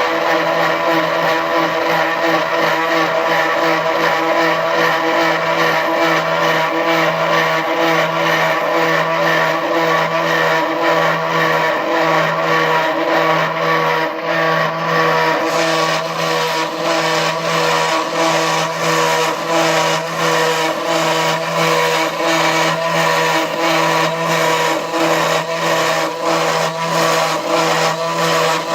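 CNC milling machine running a trial cut in metal: a steady motor whine of several fixed tones, with a rhythmic pulsing of about two beats a second that grows stronger about halfway through.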